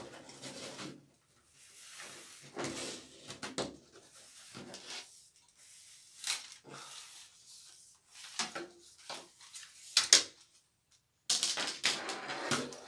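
Plastic diffuser cover of an LED tube being prised and slid off its housing: irregular scraping and rubbing with several sharp clicks, the loudest about ten seconds in, and a longer rasping scrape near the end.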